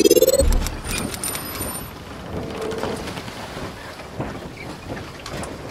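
Logo-animation sound effects: a rising whoosh that tops out just as it begins, a low boom about half a second in, then a crackling hiss with brief high tones that fades down.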